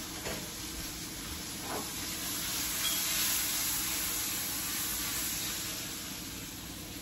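Food frying in a pan on a gas stove: a steady sizzle that swells about halfway through, with a couple of light clicks near the start.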